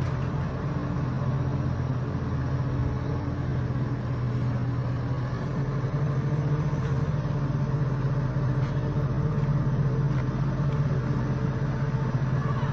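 An engine running steadily: a constant low hum that stays at the same pitch and level, with no revving.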